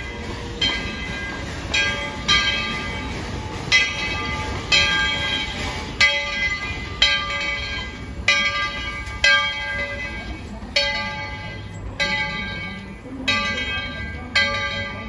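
Bell of ET&WNC No. 12, a 4-6-0 steam locomotive, ringing about once a second, each strike ringing on into the next, over a low rumble as the engine rolls slowly past.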